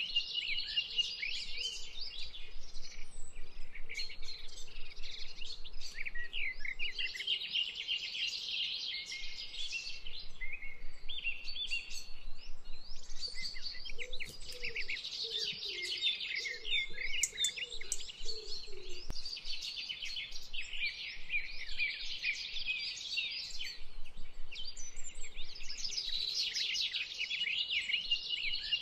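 A chorus of songbirds, many birds chirping and trilling at once without a break, high-pitched.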